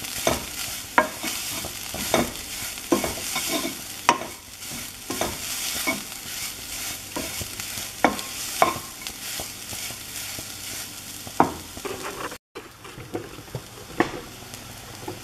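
A wooden spoon stirs and scrapes grated coconut as it dry-roasts in a non-stick pot, knocking against the pot every second or so over a light frying hiss. The coconut is being roasted until its moisture cooks off. The sound cuts out briefly near the end and comes back quieter.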